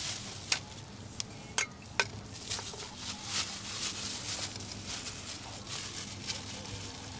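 Cookware and utensils being handled: four sharp clinks in the first two seconds, then soft scraping and rustling.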